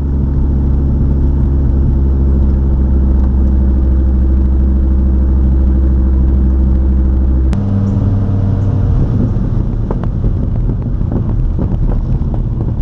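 2006 Dodge Viper SRT-10's 8.3-litre V10 running at a steady cruise, heard from outside the car close to the body. About seven and a half seconds in, a sharp click comes and the engine note changes abruptly; after that the sound is rougher, with small knocks from the road.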